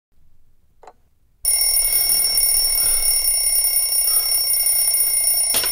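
Bell alarm clock ringing, starting suddenly about a second and a half in and going on steadily as one shrill, continuous ring.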